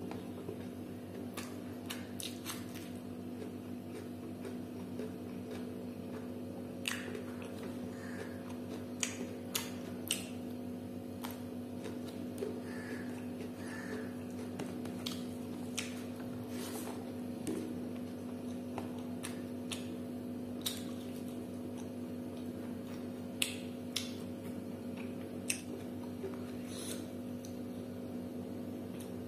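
A person eating by hand: wet chewing and sharp, irregular lip-smacking clicks while eating rice and pork, over a steady low hum.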